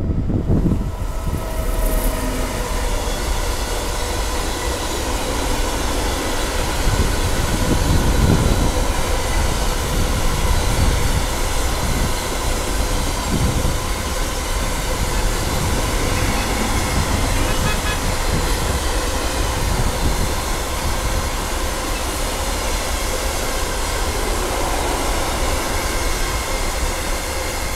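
Long empty coal train of hopper wagons rolling past at steady speed: wheels rumbling and clattering over the rails, with a steady ringing tone above the rumble.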